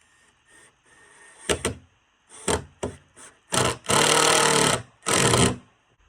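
Power drill running in short bursts, driving screws into wood, after a few sharp knocks; the longest run lasts about a second.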